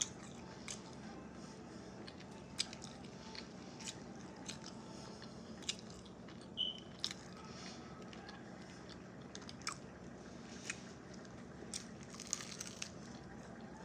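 A person eating close to the microphone: scattered wet chewing and crunchy bites, with irregular small clicks and crackles, over a faint steady hum.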